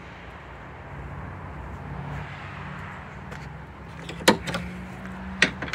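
Two sharp knocks about a second apart near the end, over a steady low hum.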